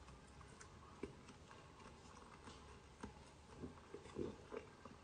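Faint chewing of a mouthful of takoyaki: soft mouth smacks and small clicks, a little more frequent around four seconds in.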